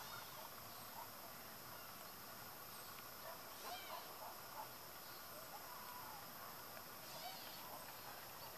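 Faint outdoor ambience: a steady insect drone, with a few short bird chirps about four seconds in and again near the end.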